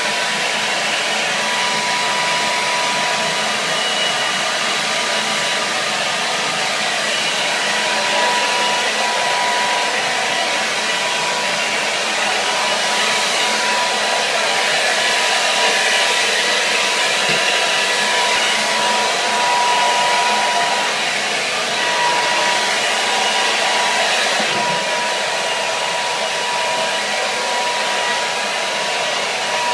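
Hair dryer running steadily on one setting: a constant rush of blown air with a steady whine from the motor.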